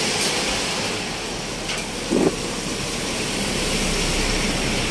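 Steady hiss and rumble of road traffic on a wet highway, with a single light click about a second and a half in.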